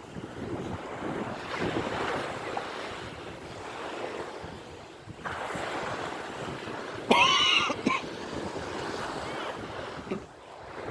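Surf and wind buffeting the microphone. About seven seconds in, a short loud pitched wail whose pitch rises and falls cuts in for under a second.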